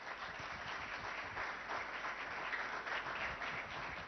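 Theatre audience applauding, swelling over the first second and tapering off near the end.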